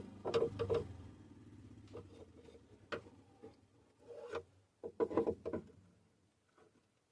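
Scattered knocks, clicks and rubbing of objects being handled, in short clusters about half a second in, around three seconds, and again around four to five and a half seconds.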